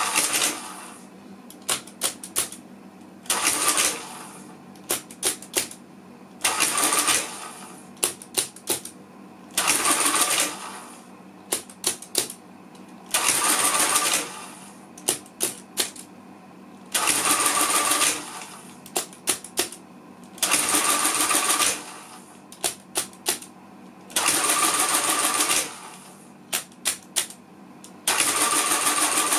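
Lagomarsino Numeria 8723 electro-mechanical calculator adding a string of numbers: a few sharp clicks as the keys are pressed, then about a second of the electric motor driving the mechanism through an add cycle with a whirring clatter. This repeats about nine times, every three to four seconds.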